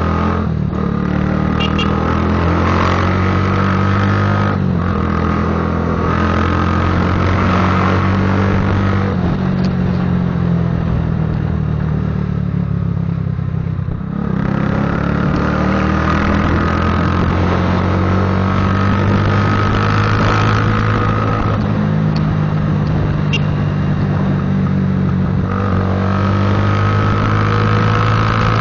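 Patagonian Eagle cruiser motorcycle's engine and exhaust rumbling while riding. It revs up and drops back several times as the gears change.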